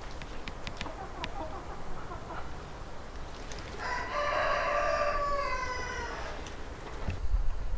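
A rooster crows once, a long call of about two and a half seconds starting around four seconds in, with hens clucking faintly before it. A low rumble comes in near the end.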